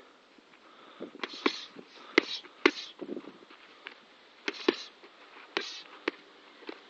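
Boxing gloves smacking into focus mitts during pad work, in four quick groups of two or three punches, each group with short hissing breaths from the fighter.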